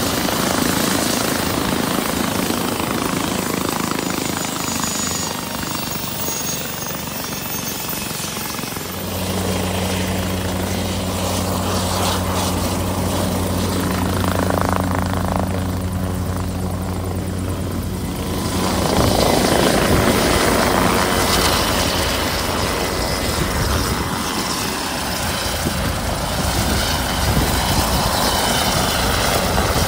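Konner K3 amphibious helicopter running on the water, its TK-250 turbine and rotor blades spinning, with a steady low hum for about ten seconds in the middle and a little louder after that.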